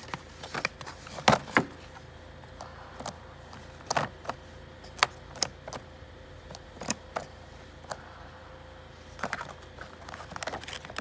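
BMW floating center caps clicking and knocking as they are handled in their cardboard box: irregular sharp clicks, a few louder knocks, and a quick cluster of clicks near the end.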